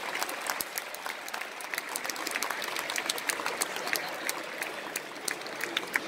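Audience applauding: a patter of many hand claps that continues steadily throughout.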